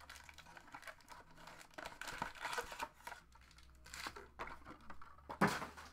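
Foil trading-card packs crinkling and rustling as they are handled and set down in stacks on a table, in irregular bursts with the loudest crinkle near the end.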